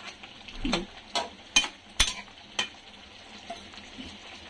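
Metal spoon stirring a thick beef and jackfruit curry in a metal pot, clinking against the pot about five times in the first couple of seconds. After that only a faint simmering sizzle remains.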